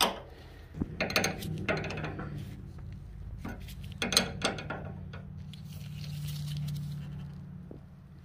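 Open-end wrench clicking and clinking on the steel tie rod jam nut as it is tightened against the sleeve to lock the adjustment, several separate metal clicks over a low steady hum.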